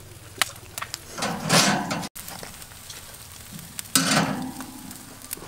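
Beef sizzling on a metal barbecue grill grate, in two short bursts of hissing with scattered sharp clicks.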